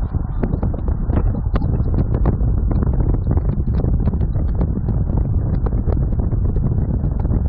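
Wind buffeting the microphone while travelling along a road, a dense low rumble with many scattered sharp clicks and knocks.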